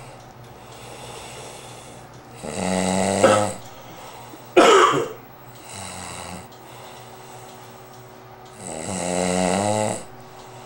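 A person snoring in deep sleep: loud, pitched, rasping snores every few seconds, with one sudden, sharper burst about halfway through.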